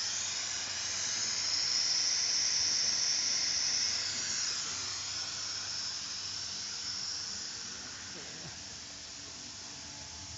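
Cigarette packing machine running with a steady high-pitched hiss, loudest in the first few seconds and easing off after about five seconds.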